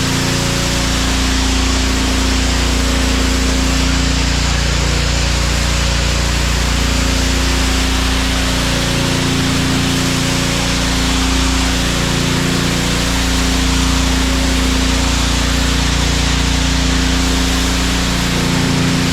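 Honda gas pressure washer running steadily, its small engine humming under a loud hiss of high-pressure water spraying onto a concrete floor; the low engine note dips briefly a few times.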